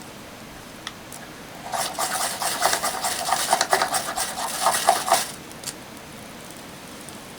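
A large Sasquatch ferrocerium firesteel scraped hard and fast with a metal striker, a run of quick rasping strokes with a metallic ring lasting about three and a half seconds, starting about two seconds in, throwing sparks onto birch bark to light it.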